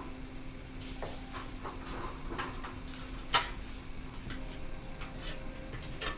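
Knocks and scrapes from stones and tools being handled during rubble-stone masonry, with one sharp knock about halfway through.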